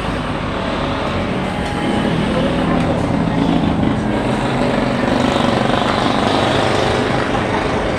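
A steady, loud engine drone with a low hum that rises and falls slightly.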